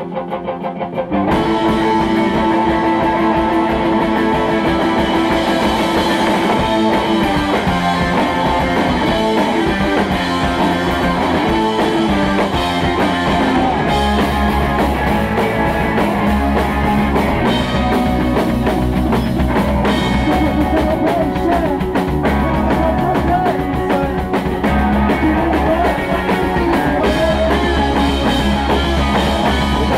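Live rock band playing an instrumental passage: electric guitar and drum kit come in together about a second in, and the low end gets much heavier about halfway through.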